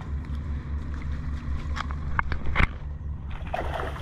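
Hooked sheepshead splashing at the surface beside the boat as it is led to the landing net, with a few sharp knocks, the loudest about two and a half seconds in, over a steady low rumble.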